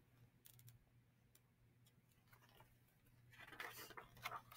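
Near silence: faint room tone with a few soft clicks, then a soft rustle of paper picture-book pages being handled and turned about three to four seconds in.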